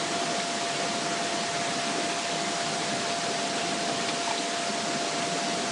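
Steady hiss of a homemade alcohol can stove burning under a covered pot of water that is just starting to boil, with a thin steady whine over it.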